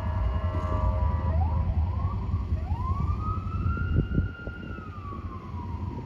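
Emergency vehicle siren wailing: after a couple of short upward yelps, a long tone rises about two and a half seconds in, holds, and falls away near the end. A low steady rumble runs underneath and drops off about four seconds in.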